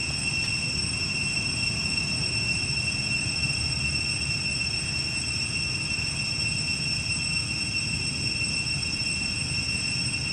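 A steady, high-pitched insect drone, such as a cicada chorus, holding one unbroken pitch, over a continuous low rumble.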